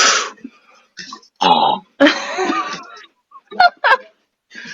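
A person burping: a string of short, croaky belches with a honking tone, the longest about two seconds in.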